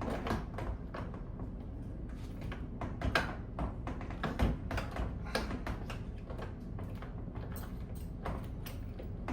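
A newly cut key being worked in a Porsche 911's door lock and the door handle tried: irregular small metallic clicks and rattles, with a couple of louder knocks about three and four and a half seconds in.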